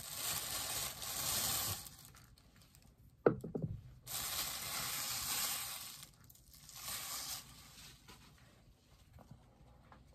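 Clear plastic bag crinkling and rustling as it is worked off a bobblehead's base, in three stretches, with one sharp knock about three seconds in.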